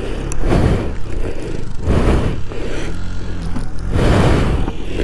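Motorcycle engine revving in surges about every two seconds as it climbs a loose, stony hillside.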